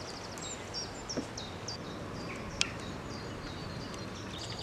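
Small birds chirping in short, repeated high notes over a steady outdoor background hiss, with one sharp clink of metal cookware about halfway through.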